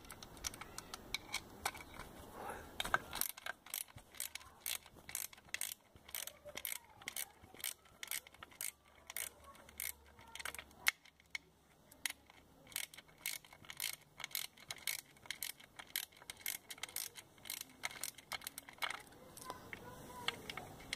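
Ratchet wrench clicking in quick runs as the 8 mm mounting bolts of an outboard ignition coil are backed out, with a short pause about halfway through.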